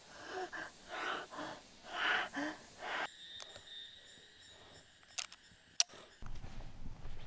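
A man's strained, pained breaths and groans through clenched teeth. After an abrupt cut, two sharp metallic clicks come from handling a broomhandle pistol, and a low steady noise starts near the end.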